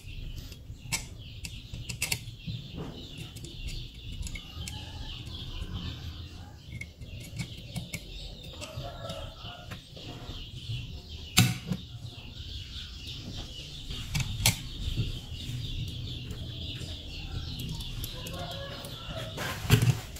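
Light clicks and taps of small metal and circuit-board parts being handled and fitted by hand on a tabletop, over a steady background hiss. The sharpest clicks come about eleven and fourteen seconds in.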